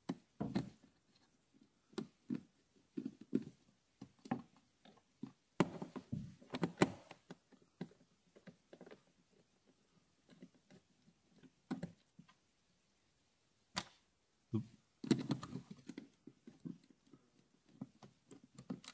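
Irregular clicks, taps and knocks of hands and a tool on the BMW E90's plastic cabin filter housing cover as its screws are taken out, some in quick clusters with short gaps between.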